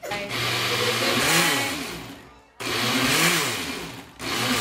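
Countertop blender running in three short bursts. The motor cuts out and starts again twice while it blends a thick mix of soaked rice, almonds, cinnamon, water and sugar for horchata.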